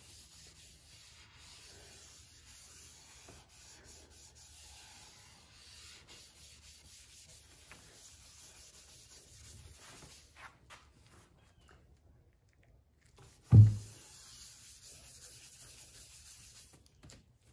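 Cloth rag rubbed by hand over a wooden board, working a finish into the wood: a faint, steady scrubbing that stops for a couple of seconds, then a single loud thump about three-quarters of the way through.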